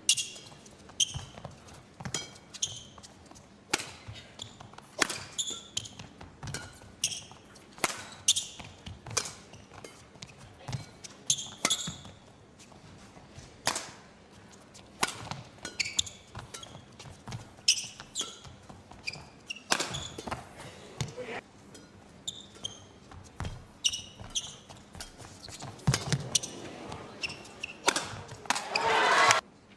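Badminton rally: a string of sharp racket hits on the shuttlecock, trading back and forth at an irregular pace, with short shoe squeaks on the court mat between strokes. A louder swell of crowd noise follows near the end.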